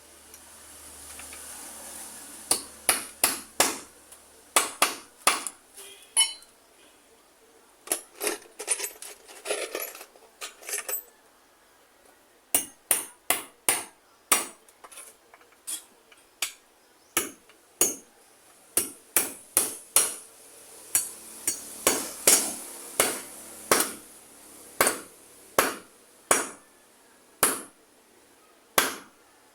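Hammer blows, struck one at a time in irregular runs of about one or two a second with short pauses between runs, as in hammering during a repair.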